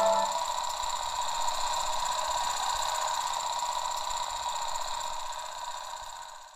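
A steady, high hissing drone with faint held tones, left as the last notes of music stop just after it begins; it slowly fades out toward the end.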